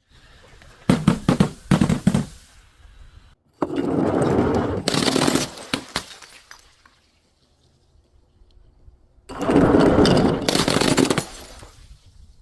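Glass bottle and crunchy objects being crushed and breaking: a quick cluster of sharp cracks about a second in, then two long crunching, crackling stretches with sharp snaps, the second starting about nine seconds in.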